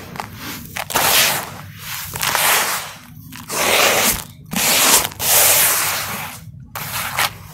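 Bare hands digging through, squeezing and stirring dry crumbly soil in a plastic tub, grains and clumps rustling and pouring, in a series of gritty swells about a second long with short pauses between.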